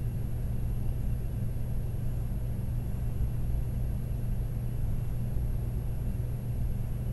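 A steady low hum with a faint rumble, even throughout and with nothing sharper rising above it.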